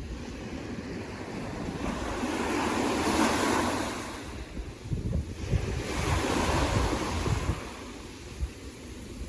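Ocean waves breaking and washing in, two swells of surf about three seconds apart, with wind buffeting the microphone.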